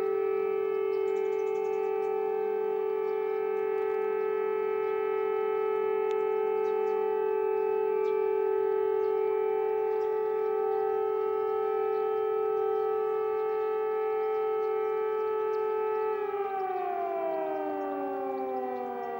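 Civil-defence air-raid siren sounding a long, steady tone; about sixteen seconds in, part of it starts to slide down in pitch as it winds down while a steady tone carries on.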